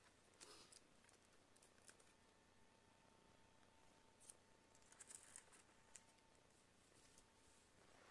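Near silence with a few faint clicks and rustles of small parts being handled, and a faint steady tone through the middle.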